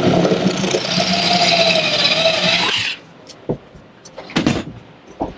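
Electric drill with a tile drill bit boring into a tiled wall, running steadily and cutting off sharply about three seconds in. A few light knocks and clicks follow.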